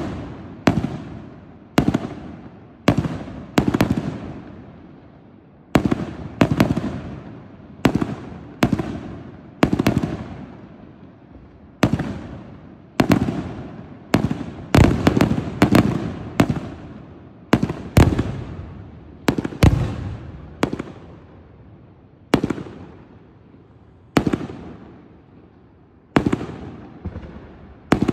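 Aerial fireworks bursting in a continuous display: sharp bangs about once a second, some in quick pairs, each trailing off in a rolling echo.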